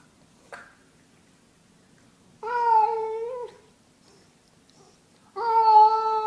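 Ginger tabby cat yowling twice at its own reflection in a mirror, a hostile call at what it takes for a rival cat. Each call is long and drawn out, about a second, and holds a fairly steady pitch.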